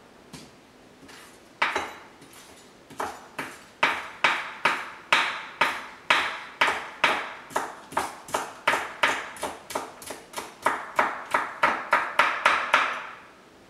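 Kitchen knife chopping green onion on a wooden cutting board: a few separate cuts, then a steady rhythm of about three chops a second that stops near the end.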